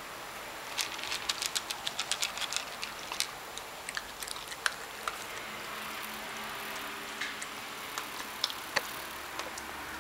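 Small dog eating dry kibble from a plastic bowl: a quick run of crunching clicks about a second in, then scattered single clicks.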